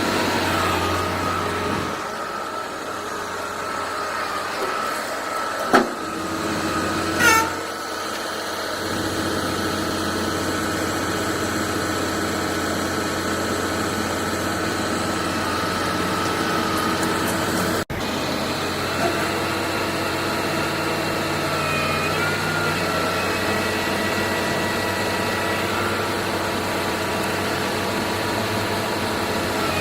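Diesel engine of a Hyundai 25-ton concrete pump truck running steadily. A short sharp sound comes about six seconds in, and a brief higher-pitched chirp a second later.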